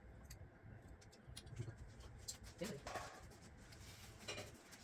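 Quiet room sound with scattered small clicks and taps, and a brief murmur of a voice about three seconds in.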